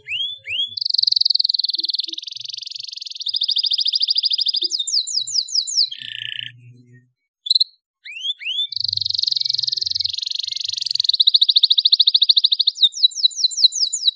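Domestic canary singing: two long song phrases with a pause of about a second between them. Each opens with a few rising whistled notes, runs into rapid high trills and rolls, then a quick series of falling notes and a lower buzzy note.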